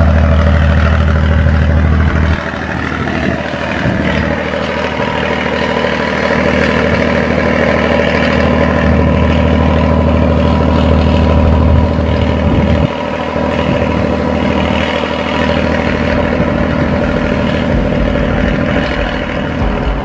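An engine running steadily with a low, even hum, its lowest tone dropping in level about two seconds in and shifting again near the thirteenth second.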